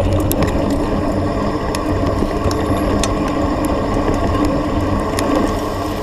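Mountain bike rolling down a hard-packed dirt track, heard from a camera mounted on the bike: steady tyre noise with a mechanical rattle and ratchet-like clicking from the drivetrain, and scattered sharp knocks over bumps.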